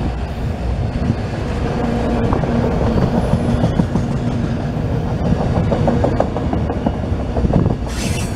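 Freight train of autorack cars rolling past close by: a steady low rumble with wheels clicking over rail joints. A brief hiss comes in near the end.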